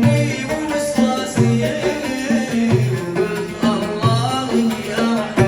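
Instrumental interlude of a Yemeni song: plucked strings play a melody over a steady drum beat.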